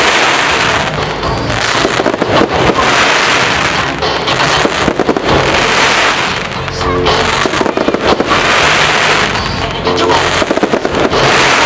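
Aerial fireworks crackling and popping densely in rapid succession, with the show's music playing at the same time.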